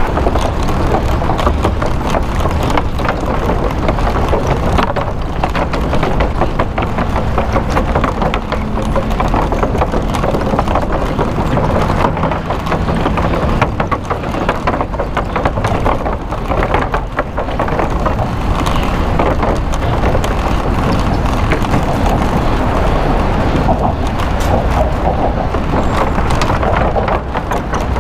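Steady rush of wind and road noise from a moving bicycle in traffic, with many small knocks and rattles throughout.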